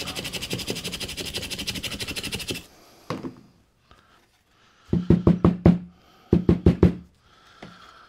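Nylon brush scrubbing a corroded wiring-harness connector wet with rubbing alcohol, in rapid scratchy strokes that stop about two and a half seconds in. A single knock follows, then two quick series of about five sharp knocks each.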